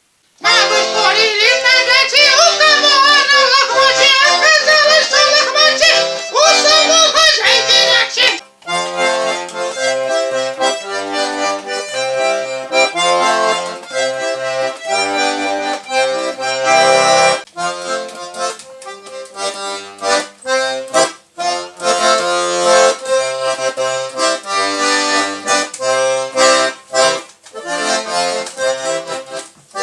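A garmon (Russian button accordion) playing a lively folk tune. The melody wavers for the first eight seconds, then breaks off briefly and continues as rhythmic chords.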